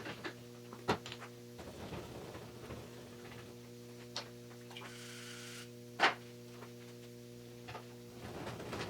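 Scattered clicks and taps of a hand tool against a piston as carbon is picked out of its ring groove, the loudest tap about six seconds in, with a short hiss just before it. A steady electrical hum runs underneath.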